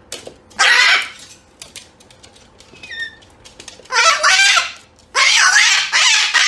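Domestic fowl giving loud, harsh squawking calls three times: a short one near the start, one about four seconds in, and a longer one near the end.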